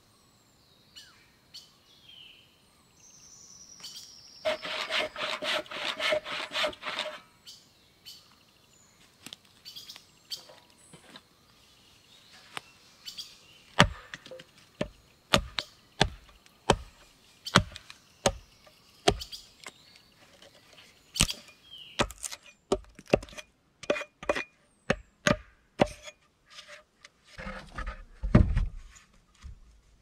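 Wood being struck by hand: a long run of sharp wooden knocks, roughly one a second, after a few seconds of rapid scraping strokes about five seconds in, with a heavier low thud near the end. Birds chirp in the background.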